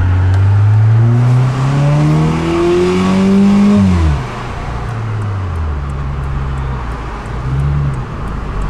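A 2009 Subaru Forester 2.5X's flat-four engine, fitted with MagnaFlow mufflers and a cold air intake, revving up steadily under hard acceleration for about four seconds. Then its revs drop sharply and it settles into a steadier, lower drone. Heard from inside the car with the window down.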